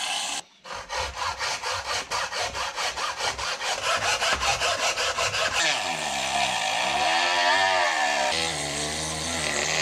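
Hacksaw cutting a plastic battery tray in quick, even back-and-forth strokes for about five seconds, then a rasping scrape whose pitch wavers up and down for the rest of the time.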